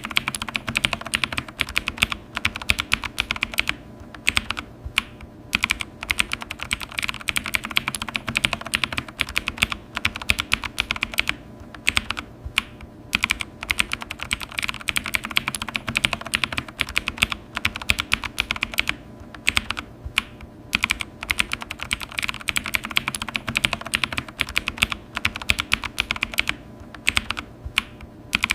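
Computer keyboard being typed on in fast, continuous runs of key clicks, with a few brief pauses between bursts.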